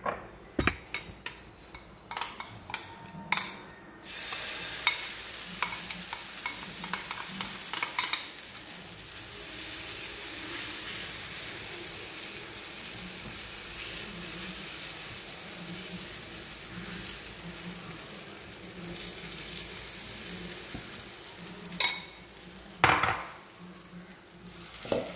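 A few sharp clicks and taps on a cast iron tawa, then pancake batter sizzling steadily on the hot tawa as it is spread with a spoon, with two sharp knocks near the end.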